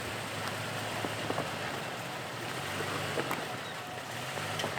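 Off-road truck engine running at low revs while crawling over rocks, with a few sharp clicks.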